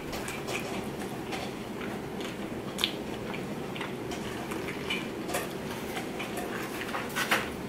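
A person chewing a bite of sauced bone-in chicken wing, with scattered small wet clicks and smacks and one sharper click about three seconds in.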